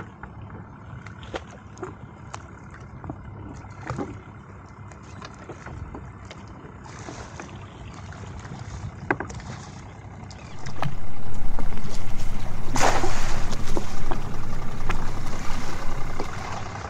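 Cast net handled on a jet ski: scattered light clicks and rattles over a low, steady engine hum. About ten seconds in, a much louder rushing noise starts and lasts about six seconds, with one sharp loud burst in the middle of it.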